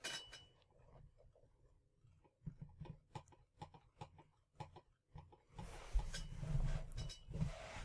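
Faint handling noise around a computer: scattered light clicks and taps, then a soft rustling from about two seconds before the end.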